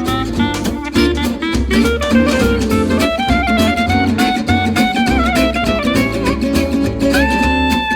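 Background music: an instrumental piece with plucked guitar and a bowed fiddle line.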